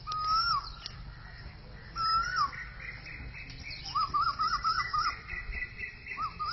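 Bird-like whistled calls: a held note that drops away at the end, heard twice, then a quick warbling run of about six rising-and-falling notes, with another run starting near the end.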